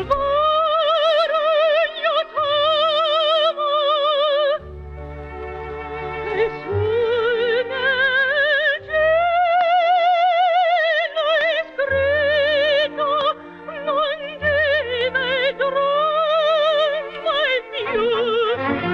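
Operatic solo singing: long, high held notes with a wide vibrato over instrumental accompaniment.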